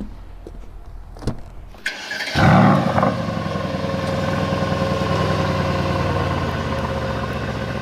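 A couple of light clicks, then about two seconds in the Mercedes-AMG GLE 63 S's 4.0-litre twin-turbo V8 starts with a short loud flare and settles into a steady idle.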